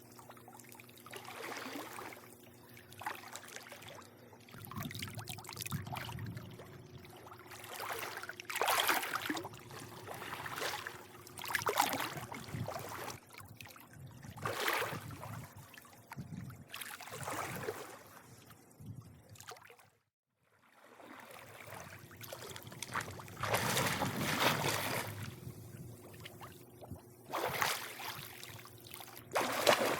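Swimming-pool water lapping and sloshing in irregular swells every second or two, over a steady low hum. The sound cuts out completely for a moment about two-thirds of the way through.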